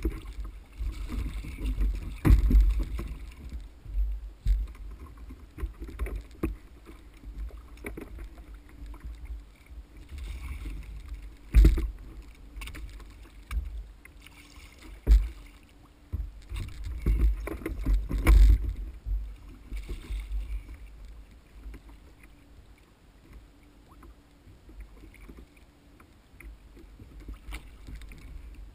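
Water sloshing and splashing against a kayak hull with irregular sharp knocks and thumps, a handful of them loud, while a gaffed wahoo is worked alongside and hauled up against the kayak. The knocking settles down in the last third.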